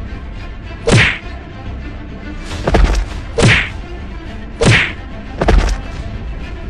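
Dubbed film-fight punch sound effects: five hits, each a quick swish ending in a heavy thwack, spaced unevenly over a few seconds, over a steady low background.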